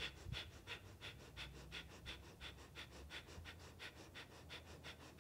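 Kapalabhati (breath of fire) yogic breathing: a faint, even run of quick forceful exhalations, about three a second, each pushed out by a pull of the belly and sounding through the back of the throat rather than the nose.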